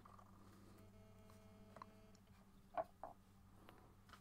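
Near silence: faint steady room hum, with two faint short ticks close together just before three seconds in.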